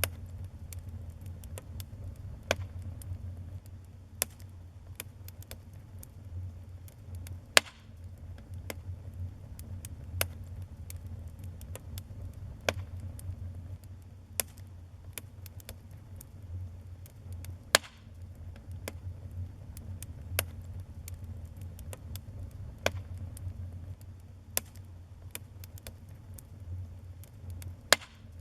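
Wood fire burning in a fireplace, crackling with sharp pops at irregular intervals over a steady low rumble of the flames. A few louder snaps stand out, about a third of the way in, near two-thirds, and near the end.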